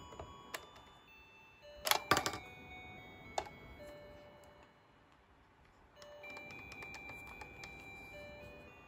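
Toy cash register's electronic beeps and short tones at changing pitches, with plastic clicks and taps as the toy is handled. A sharp cluster of clicks comes about two seconds in, and a held beep with fine ticking follows in the second half.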